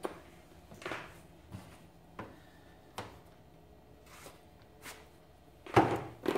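Light clicks and taps as a fixed-blade survival knife is handled and sheathed in its leather sheath, then a louder thud near the end as it is set down on the workbench.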